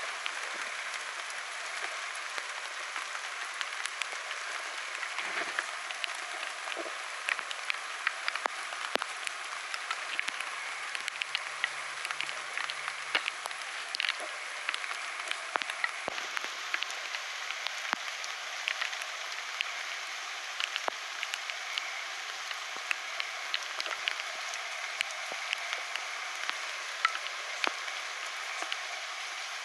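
Steady rain falling: a constant hiss with many irregular sharp ticks of individual drops.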